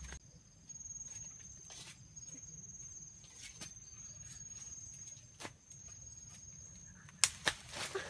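Footsteps and rustling through dry leaf litter and forest undergrowth, with scattered snaps and two sharp, loud ones about seven seconds in. A steady high-pitched insect drone runs behind them.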